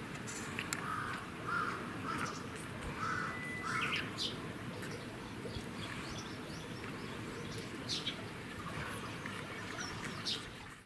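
Birds calling outdoors, several short calls in the first four seconds and a few more later, over a steady low background noise.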